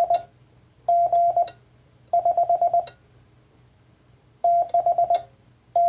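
Morse code sent on a Vibroplex key: a steady mid-pitched sidetone beep switched into short groups of dahs and quick dits, with a faint click at each keying. The groups are attempts at the number 6 (a dah followed by four dits), one of them a run of dits alone.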